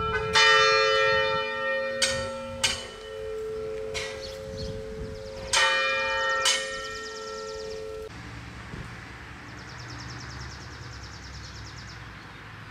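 Church bell swinging in a wooden belfry, struck several times at uneven intervals, each strike leaving a long ringing hum. The ringing cuts off abruptly about eight seconds in, leaving only faint background noise.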